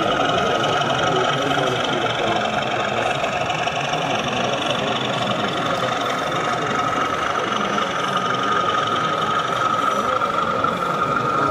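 Sound-fitted O gauge model of a BR Class 37 diesel locomotive running slowly, with a steady diesel engine sound and a high whine that gets louder near the end.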